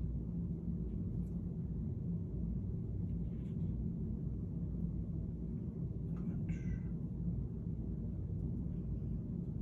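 Steady low room hum, with a brief faint high-pitched cry about six and a half seconds in.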